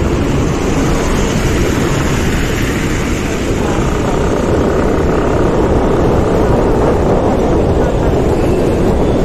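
Motorcycle on the move: the engine running steadily under a heavy, unbroken rush of wind on the microphone.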